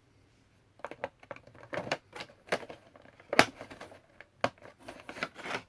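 A Funko Pop's cardboard box and packaging being handled. It starts about a second in as a run of irregular clicks, taps and crinkles.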